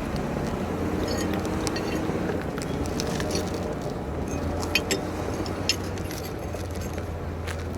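A bulldozer's engine running steadily under load, with many light metallic clinks and clanks, two of them louder about five and six seconds in.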